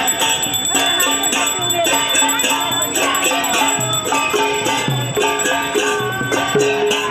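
Large hand cymbals clashed together in a quick, steady rhythm, with a group of voices singing over them.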